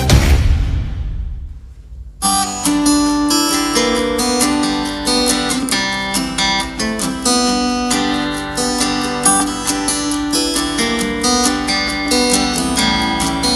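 Acoustic guitar music, plucked and strummed, played through a Robot RB100 portable Bluetooth speaker (3 W, 40 mm driver) in a sound test. The ringing tail of an electronic track dies away first, and the guitar starts suddenly about two seconds in.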